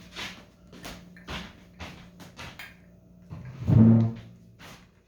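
Small plastic Lego pieces clicking and rattling as they are sorted through, a series of short sharp clicks, with one louder, short, low-pitched sound about four seconds in.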